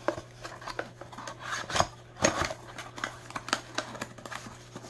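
Kitchen gadgets and their packaging being handled: a run of light clicks, clatters and rubbing, with a couple of sharper knocks about two seconds in.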